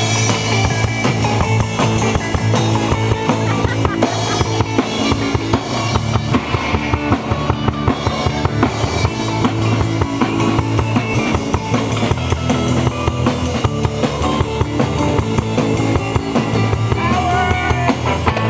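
Live rock band playing a cover song, with a drum kit keeping a steady beat under bass guitar, electric guitar and acoustic guitar.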